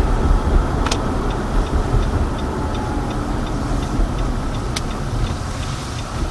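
Car cabin with a steady low road and engine rumble, and the turn-signal indicator ticking evenly about three times a second from about a second in. Two sharper clicks stand out, one near the start and one near the end.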